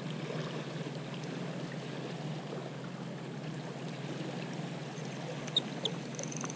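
Small waves washing against jetty rocks, a steady low wash of water, with two faint clicks near the end.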